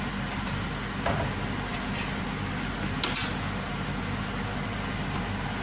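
Steady low hum with a hiss, as of a kitchen appliance running, with a couple of faint taps about one and three seconds in as a wooden spoon stirs rice in water in a stainless steel pot.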